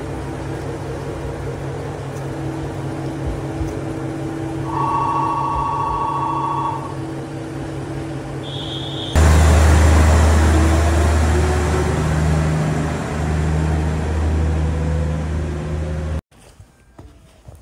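Diesel railcar engine running steadily, with a two-note tone held for about two seconds midway and a brief high tone after it. The engine then runs up much louder with a deep rumble and a slowly rising pitch, as when a railcar pulls away, and the sound cuts off suddenly near the end.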